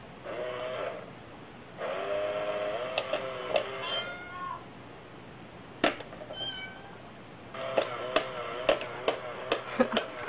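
A cat meowing in long, wavering, drawn-out calls in three spells, with several sharp clicks in between, the loudest about six seconds in.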